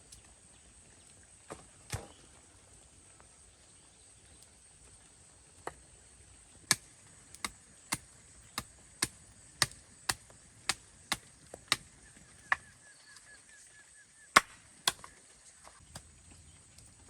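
A run of sharp chopping or knocking strikes, about two a second for several seconds, with a few single strikes before and after. A faint steady high-pitched tone runs underneath.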